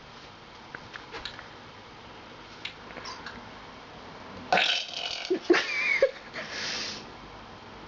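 A person burping: after a few seconds of quiet, one loud, drawn-out burp in several parts lasting about two seconds, starting a little past halfway.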